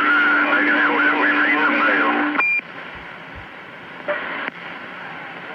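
CB radio receiver carrying garbled, unintelligible voices from distant stations with a steady low whistle beneath them, ending about two and a half seconds in with a short beep; then the steady hiss of static on the open channel, with a brief faint burst near the end.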